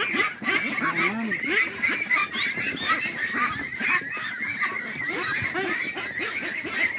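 A crowded flock of domestic ducks calling all at once, a dense, unbroken chorus of many overlapping quacks, as the birds are caught and handled for crating.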